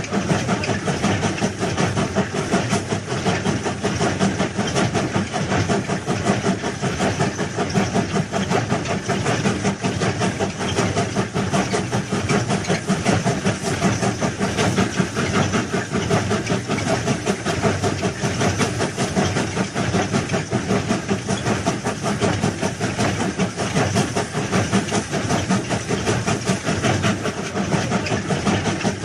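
A rail vehicle running steadily with a dense, noisy mechanical sound whose loudness pulses rapidly.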